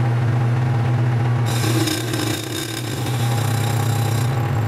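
Metal lathe running at speed, a steady motor hum with a harsher cutting noise from about a second and a half in until past four seconds, in footage sped up five times.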